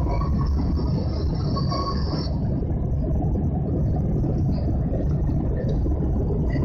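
Jet airliner cabin noise heard from inside the plane: a steady, loud rumble of engines and airflow. A higher hiss fades out about two seconds in.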